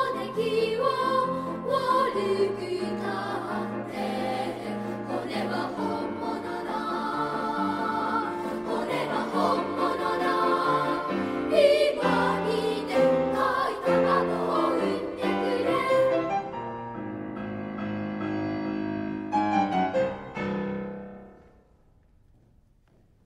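Children's choir singing with piano accompaniment, ending on a held final chord. The closing chord dies away about twenty-one seconds in, leaving near silence.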